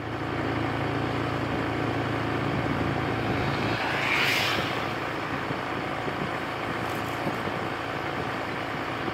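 Engine of a moving vehicle running steadily with road and wind noise. A brief louder rushing swell comes about four seconds in, after which the engine's hum recedes under a rougher rumble.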